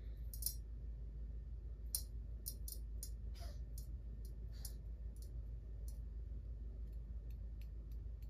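Light, sharp clicks and taps, a dozen or more scattered over about six seconds and then fewer: a small cup being tapped and handled to knock gold flakes onto a scale for weighing. A faint steady low hum runs underneath.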